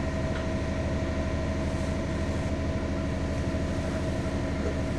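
A 50 ft trawler yacht's single port engine running steadily at cruising speed, heard from inside the wheelhouse as a constant drone with a steady higher tone over it.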